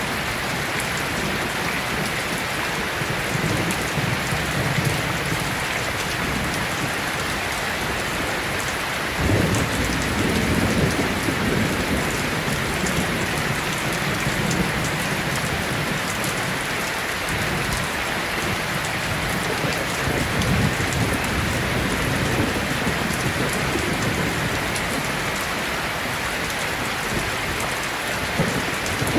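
Heavy rain pouring steadily on a metal roof, with low rolls of thunder rumbling underneath, the strongest starting about nine seconds in.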